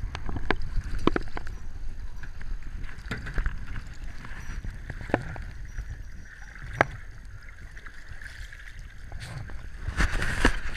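Small sea waves sloshing and slapping against a camera bobbing at the water's surface, over a low wind rumble on the microphone. Sharp water slaps come every second or two, with a louder splash near the end.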